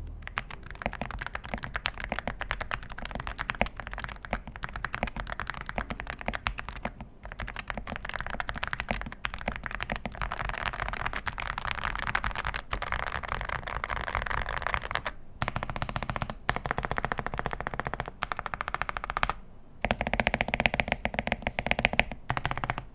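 Fast, continuous typing on a mechanical keyboard fitted with Akko Rosewood switches: a dense run of keystrokes with a deep, thocky sound, broken by a few brief pauses.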